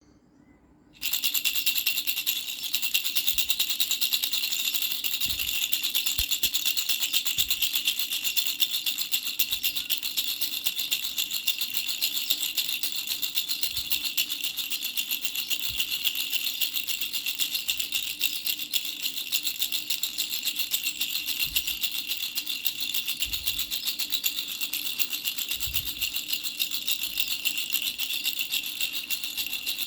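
Baby rattle being shaken fast and without a break: a dense, steady, bright rattle that starts about a second in.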